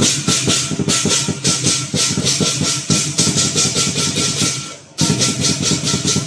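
Lion dance percussion: a drum beaten in fast, even strokes with clashing cymbals on each beat. The playing fades out shortly before five seconds in, starts again at once and breaks off near the end.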